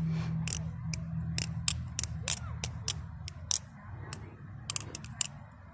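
Replica Raven balisong trainer being flipped by hand: its handles click and clack against each other and the latch in over a dozen sharp, irregularly spaced clicks. A steady low rumble sits underneath and fades after about four seconds.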